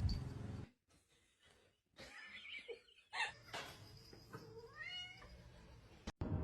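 A cat meowing, with one drawn-out meow rising in pitch near the end after a few fainter sounds.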